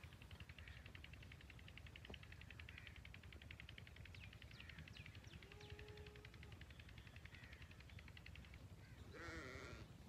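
Faint outdoor ambience with a rapid, high-pitched pulsing trill through most of it, and a short wavering bleat, like a sheep or goat, just before the end.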